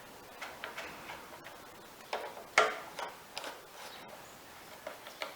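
Scattered light clicks and taps of parts being handled on a lawnmower's Briggs & Stratton engine, with two sharper clicks about two and a half seconds in.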